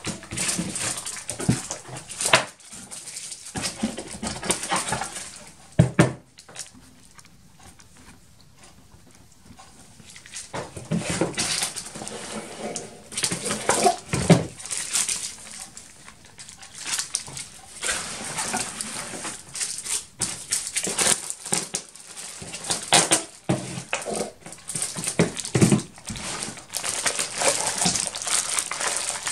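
Plastic parts bags crinkling and rustling as they are picked through in a cardboard box, with a few sharp knocks. There is a pause of a few seconds about a quarter of the way in.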